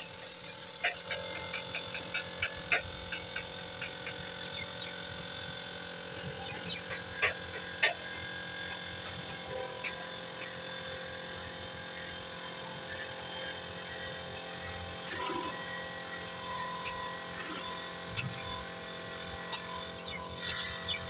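Air hissing from an air hose at a steel tractor wheel rim, stopping about a second in. Then a quick run of light clicks and a few sharp metallic knocks as tractor tyres and rims are handled.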